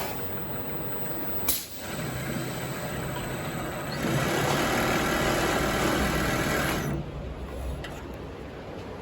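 Heavy-duty mattress tape edge sewing machine running with a steady mechanical hum after a sharp click about a second and a half in. It gets louder at about four seconds and stops abruptly near seven seconds.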